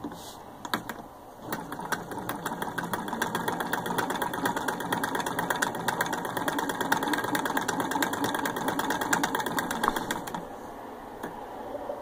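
Serviced antique Willcox & Gibbs chain-stitch sewing machine, hand-cranked, stitching through cloth with a rapid, even ticking of its mechanism. It gets going about a second and a half in and stops about ten seconds in.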